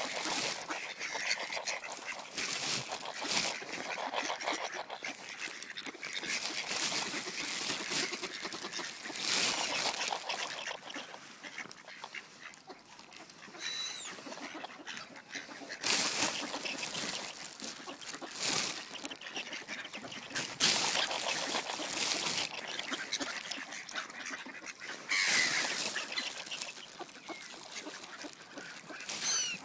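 Mallard ducks calling as they crowd in to be fed, with repeated bursts of noise between the calls.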